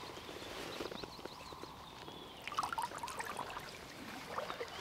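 Faint splashing and trickling of shallow river water as a hooked chub is taken by hand from the water, with a short run of splashes about two and a half seconds in.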